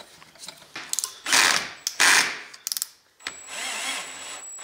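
Cordless drill-driver running screws into the metal frame of a kit excavator to mount its slew motor. Two short loud bursts come near the middle, then a longer run of the motor, its pitch wavering as it drives, near the end.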